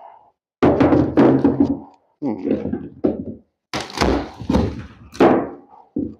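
Heavy thunks and knocks on wooden subflooring as the rotten boards are struck and worked loose. The sound comes in about four separate bouts, the last a short one near the end.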